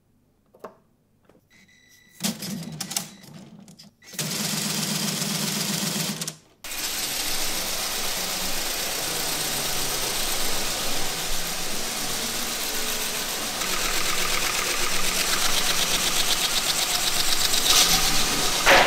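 Lego pneumatic engine running on compressed air: a fast mechanical clatter of its pistons and valves mixed with a hiss of exhausting air. It starts about two seconds in with two short runs, stops for a moment, then keeps running as the truck drives.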